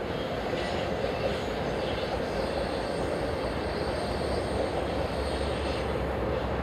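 Freight train of enclosed autorack cars rolling past, a steady rumble of steel wheels on rail.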